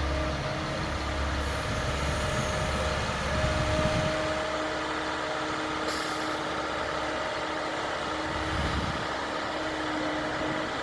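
Heavy diesel machinery running steadily: an excavator working beside a dump truck, with a steady whine over a low rumble. A brief hiss comes about six seconds in.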